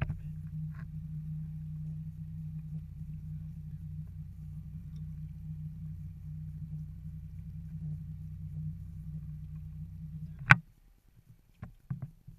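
Boat engine running steadily with a low hum, cut off about ten and a half seconds in by a single sharp click, after which only a few faint knocks are left.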